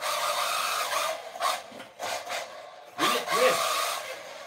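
Small 1/16-scale brushless RC drift car driven on carpet in several short throttle bursts, the longest about three seconds in: a whirring motor-and-gear whine with the rasping scrub of hard drift tyres.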